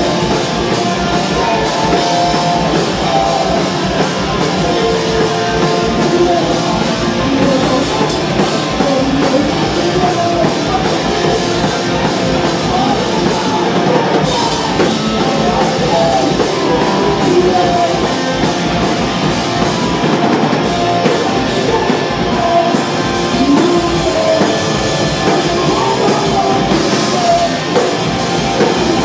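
Hardcore punk band playing live at full volume: distorted electric guitars, bass and pounding drums, with a lead vocal over them.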